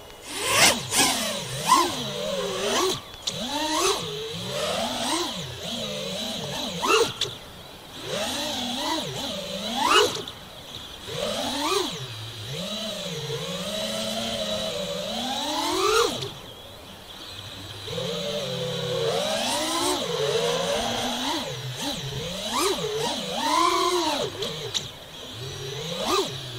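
FPV quadcopter's brushless motors whining as it flies. The pitch swings up and down with the throttle, with several sharp rising punches that are the loudest moments.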